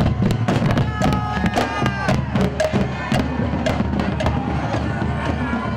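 Marching band playing: bass drums beating a steady rhythm under sousaphones and saxophones.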